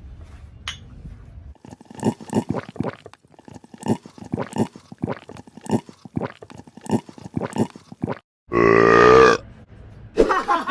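Beer being gulped down in quick swallows, two or three a second, followed near the end by one loud belch lasting under a second.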